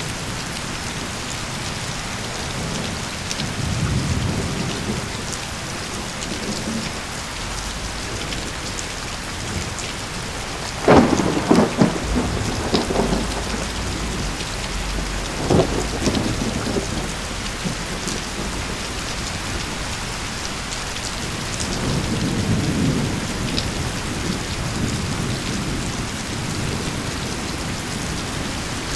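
Steady rain falling through a thunderstorm. Low rolls of thunder come near the start and again toward the end. A sharp, close thunderclap with a few quick cracks comes about eleven seconds in, the loudest sound here, and a smaller crack follows a few seconds later.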